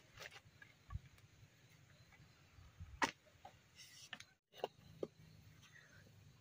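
A few light knocks and clicks of bamboo pieces being handled and fitted together, the sharpest about three seconds in.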